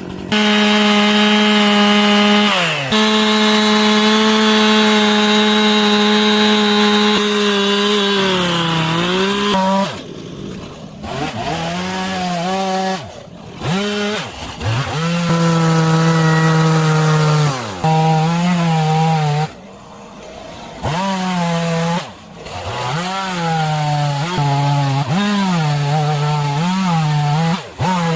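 Two-stroke chainsaw carving wood. It is held at full throttle for the first several seconds, with its pitch sagging as the chain bites. After that it is repeatedly let back to idle and revved up again in short bursts.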